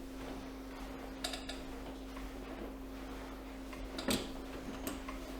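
Steady low hum with a few short, faint clicks and rustles, the clearest about a second in and about four seconds in.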